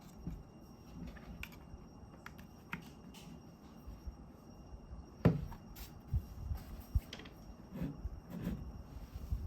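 Handling sounds: scattered knocks and clicks, the loudest a thump about five seconds in, with a few more knocks after it.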